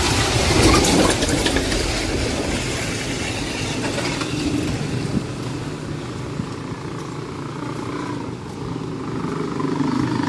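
A big truck passing close by, its engine and tyre noise loudest about a second in and then fading into steady road traffic.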